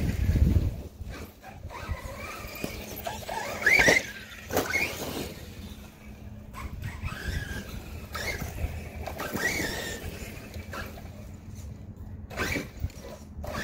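Redcat Landslide XTE RC truck's electric motor and drivetrain whining in short throttle bursts, the pitch rising and falling several times, with a few louder surges.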